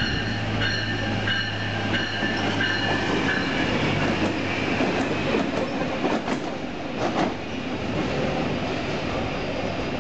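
Metro-North BL14CG diesel locomotives passing on the track. The wheels click over the rail joints about one and a half times a second with a high squeal, over a steady low engine hum that fades after about four seconds. A few sharp knocks come around six to seven seconds in.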